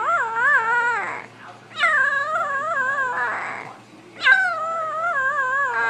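A young puppy howling: three long, wavering howls, each starting on a high note that drops into a quivering, lower tone, with short pauses between them.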